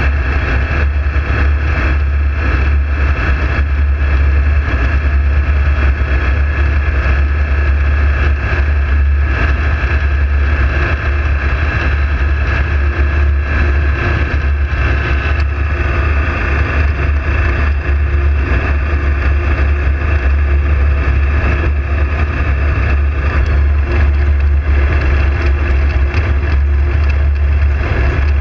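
Ultralight aircraft's engine and propeller droning steadily in flight, heard from inside the open cockpit, with a deep, even hum and a rushing noise that does not change.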